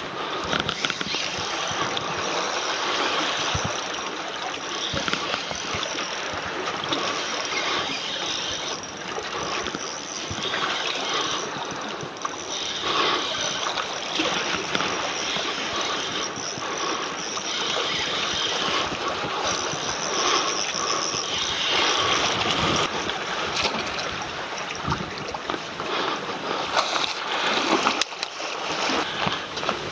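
Seawater washing and sloshing among concrete tetrapods, a steady rush of water. Near the end come a few sharper splashes at the surface beside the fishing line.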